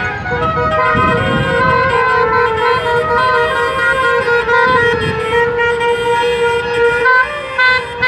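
Car horns honking steadily as a motorcade of cars drives slowly past, with music from roof-mounted loudspeakers mixed in and the rumble of the passing cars.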